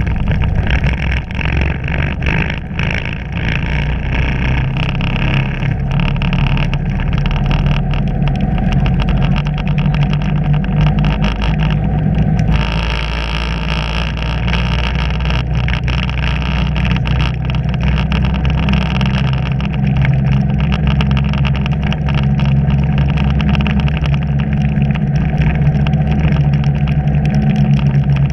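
Engine of the camera-carrying vehicle running steadily at low town speed, heard up close. Its note shifts about halfway through.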